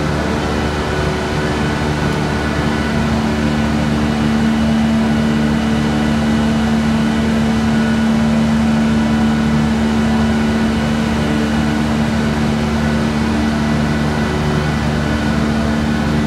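Sugarcane mill drive running under load: a large electric motor fed by a Vacon NXP variable-frequency drive, turning the mill through a big gearbox. It gives a loud, steady hum with several steady tones over the machinery noise.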